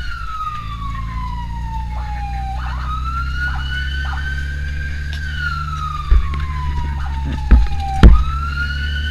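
An emergency siren wails in long slow sweeps, each falling in pitch over a couple of seconds and then climbing back up. It is heard from inside a car over a steady engine and road rumble, with a few loud thumps near the end.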